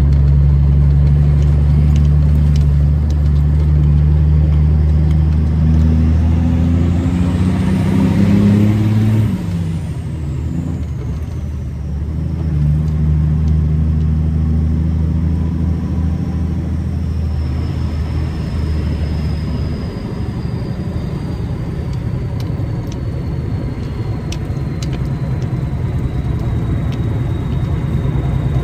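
Cabover semi truck's turbo diesel heard from inside the cab. The engine note and a high turbo whistle climb together, then the engine drops abruptly about nine seconds in, and the turbo whistle winds slowly down through the rest.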